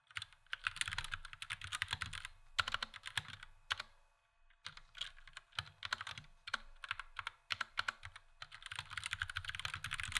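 Fast typing on a budget mechanical keyboard: dense runs of clacking keystrokes in bursts, with brief pauses between runs.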